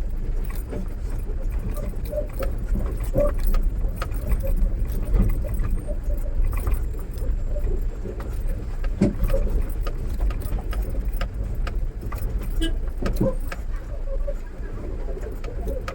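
Mahindra Bolero pickup driving over a rough off-road track, heard from inside the cab: the engine and drivetrain rumble steadily under constant rattling and jangling from the cab.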